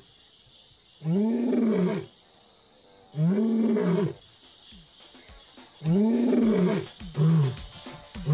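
Male lion roaring: three long roars of about a second each, each rising then falling in pitch, followed near the end by shorter grunts in quicker succession.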